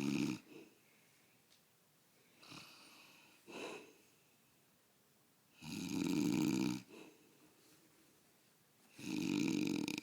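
A man snoring loudly in his sleep: long snores about a second each, one near the start, one around six seconds in and one near the end, with two fainter, shorter breath sounds in between.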